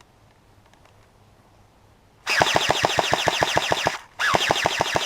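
Airsoft gun firing on full auto in two bursts of rapid, evenly spaced shots, roughly ten a second. The first burst starts about two seconds in, and the second follows after a brief pause.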